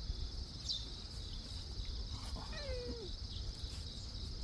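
A domestic cat meows once, a short call falling in pitch, about two and a half seconds in. A steady high-pitched whine runs underneath.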